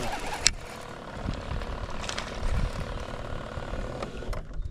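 Baitcasting reel being cranked, its gears giving a steady whir that stops near the end as a small bass is lifted from the water. There is a sharp click about half a second in.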